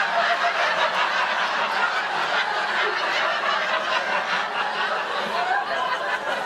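Studio audience laughing, a long wave of many voices together that begins to die down near the end.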